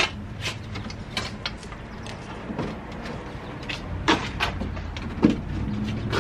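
Scattered clinks and knocks from hands working on a dirt bike's rear wheel and drive chain during reassembly. A low steady rumble comes in about four seconds in.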